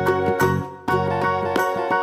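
Instrumental background music with a steady run of notes, which drops out briefly a little over half a second in.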